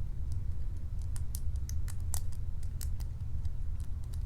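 Lock pick clicking and scraping against the pin stacks inside an American 1205 padlock during picking: irregular small sharp metal clicks. A steady low hum runs underneath.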